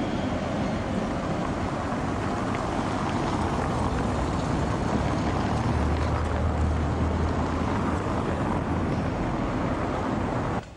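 Street traffic: a Tatra KTNF6 tram running away down the street, then cars driving by, with a low engine hum from about halfway through as one passes. The sound cuts off suddenly just before the end.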